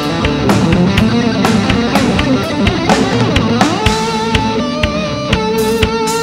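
A live rock band with an electric guitar playing a lead line over a drum kit. A little under four seconds in, a note is bent up and held.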